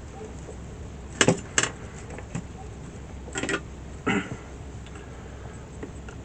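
Small hard objects being handled on a work surface: two sharp clicks a little over a second in, then two short clattery knocks around three and a half and four seconds.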